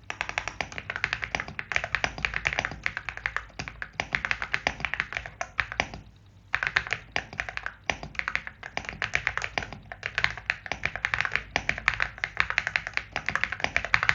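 AULA S75 Pro mechanical keyboard being typed on quickly: a dense, continuous run of keystrokes, with a short pause about six seconds in.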